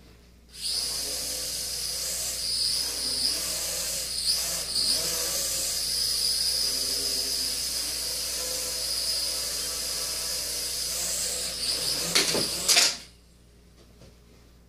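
Traxxas Alias mini quadcopter's motors and propellers whining as it flies, the pitch rising and falling with the throttle. A few sharp knocks come just before the motors stop suddenly near the end.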